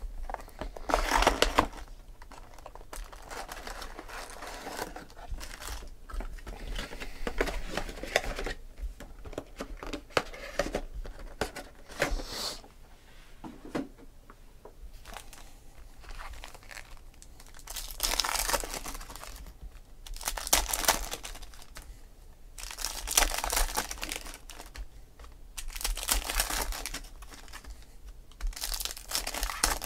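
Foil wrappers of Panini Select football card packs being torn open and crinkled, one pack after another, in a burst of rustling every few seconds.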